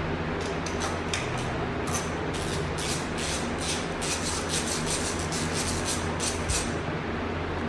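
Hand ratchet clicking in short runs, a few bursts a second, as it loosens the engine-cover nuts, over a steady low hum. The clicking stops near the end.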